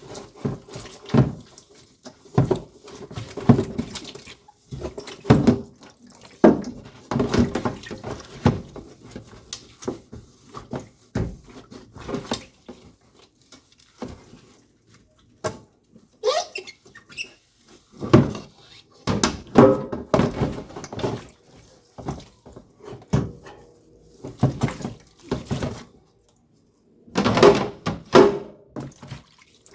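Intermittent water splashing and knocking of things being handled in a sink, in irregular bursts with short pauses between.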